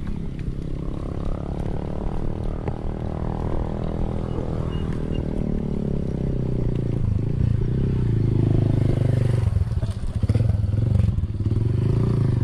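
Motorcycle engine running close by. Its note holds steady at first, then rises and falls in pitch over the second half.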